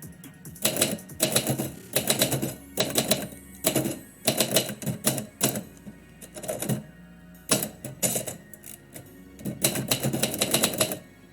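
Typewriter keys striking in quick bursts of typing, with short pauses between runs, stopping just before the end.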